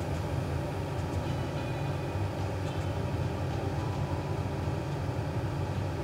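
Sliced pork bubbling in its own juices in a lidded pan on the hob: a steady low rumble with faint scattered pops.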